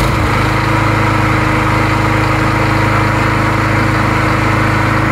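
Walk-behind push mower's small single-cylinder engine, just started, rising to speed and then running steadily. It fires up now that the blade-brake cable has been adjusted so the kill switch disengages.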